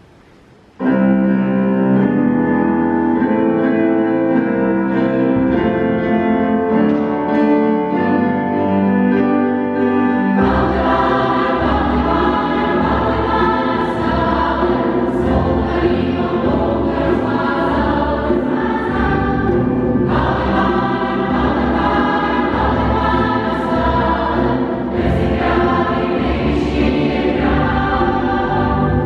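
A mixed choir with a small chamber ensemble of strings and keyboard performs a sacred song. The music starts suddenly about a second in with held instrumental chords. About ten seconds in it grows fuller, with a deeper bass, as the choir's singing comes in.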